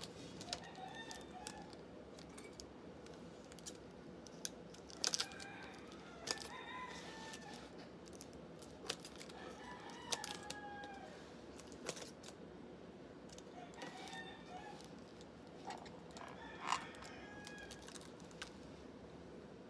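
A rooster crowing faintly several times, with sharp clicks and rustles of scissors snipping plastic wrap and a plastic lid being handled.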